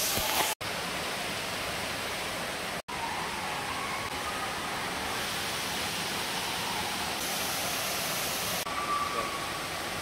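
Steady rush of falling and running water from a waterfall and its rocky stream, an even hiss that drops out twice for an instant in the first three seconds.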